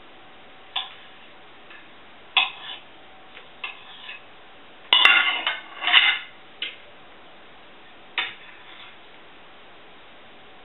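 Knife and fork clinking against a plate while cutting food: a handful of short, separate clinks, the loudest ringing briefly about five seconds in.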